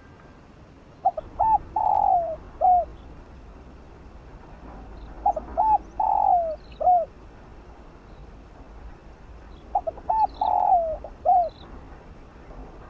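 Spotted dove cooing: three phrases about four to five seconds apart, each a few short coos and one longer, falling coo. Faint high chirps of small birds come in between.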